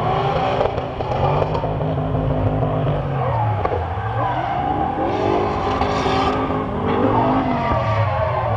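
Drift cars' engines revving up and falling back over and over as the cars slide through the corners, several engine notes overlapping, with tyres squealing. The tyre noise swells for about a second, five to six seconds in.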